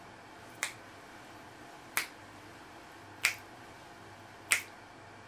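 Fingers snapping four times in a slow, even beat, about a second and a quarter apart.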